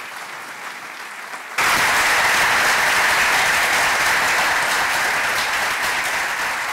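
Large audience applauding: faint clapping at first, then abruptly much louder about a second and a half in, easing off slowly towards the end.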